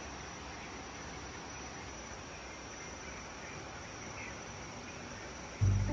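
Insects chirring steadily, with one thin, high, unbroken tone over a soft even hiss. Music comes in loudly near the end.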